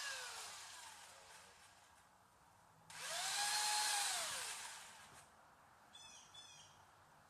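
Chainsaw engine winding down after a rev, then revved again about three seconds in, the pitch rising and falling back off within two seconds.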